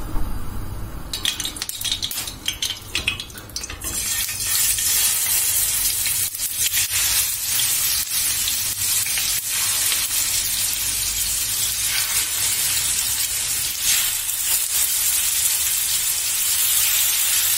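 Marinated chicken skewers sizzling in hot vegetable oil in a frying pan as they are laid in one after another. The sizzling comes in short bursts about a second in, becomes a steady loud sizzle from about four seconds, and is crossed by occasional clicks.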